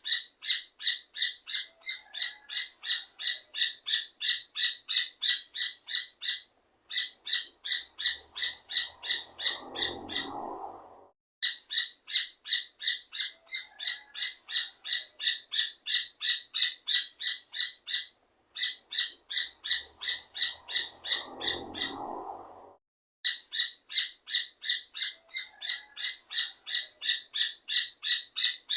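Rufous hornero (joão-de-barro) singing: fast runs of clear, ringing notes, about four a second, in bursts of several seconds with short breaks between them. Near the end of two of the bursts a lower, rougher sound swells underneath.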